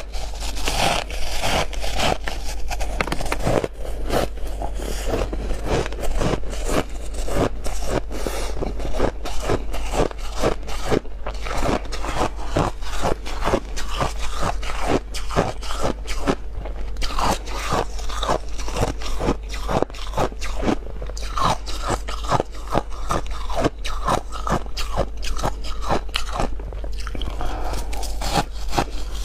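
Close-up crunching and chewing of big mouthfuls of freezer frost: rapid, dense crackles as the packed ice crystals are bitten and ground between the teeth.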